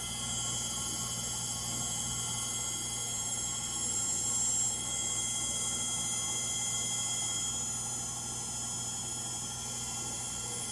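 Frigidaire Gallery front-load washer in its final spin, running with a steady high-pitched whine over a low hum; the motor bearings are bad.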